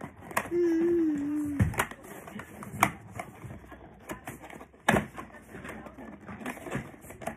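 Plastic toy track pieces clicking and clattering as they are handled in a cardboard box, a few sharp knocks standing out. Near the start a loud, slightly wavering single tone sounds for about a second and then drops away sharply in pitch.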